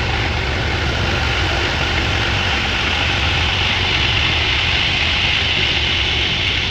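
Heavy diesel engine running steadily at idle, a constant low rumble with a dense hiss over it.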